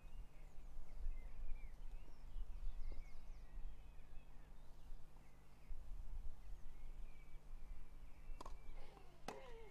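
Open-air ambience: a steady low wind rumble with small birds chirping faintly, then two sharp knocks about a second apart near the end.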